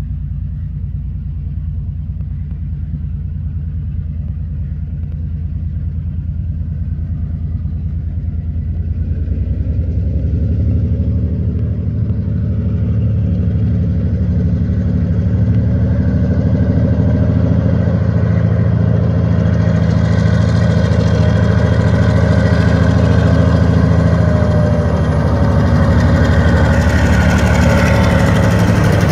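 TasRail diesel freight locomotives 2002, TR17 and TR09 approaching under power, the engines' low drone growing steadily louder as the train nears. Wheel and rail noise builds over the last several seconds as the locomotives come up close.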